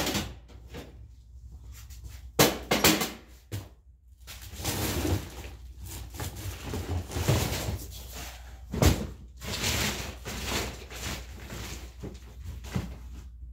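Clutter being handled and shifted: knocks and thumps of plastic bins and boxes, the loudest about two and a half seconds in and again near nine seconds, with rustling and scraping between them.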